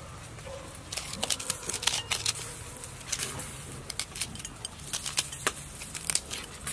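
Knife scraping the seeds out of halved green gourds, a run of irregular short scrapes and clicks.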